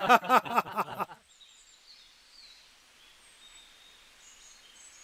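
Loud background music cuts off sharply about a second in, giving way to faint outdoor ambience with scattered high bird chirps.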